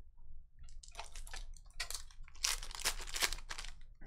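Shiny foil trading-card pack wrapper crinkling and tearing as it is ripped open by hand, a run of crackly rustles that is loudest about two and a half to three and a half seconds in.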